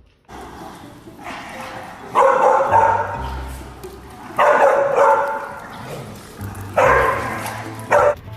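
A dog barking four times, each bark drawn out and a couple of seconds apart.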